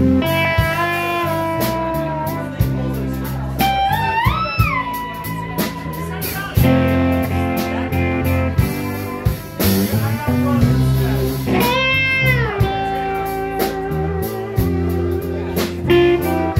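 Live blues-rock band playing an instrumental: drum kit, electric bass and trumpet, with a lead line that slides up in pitch about four seconds in and bends up and back down about twelve seconds in.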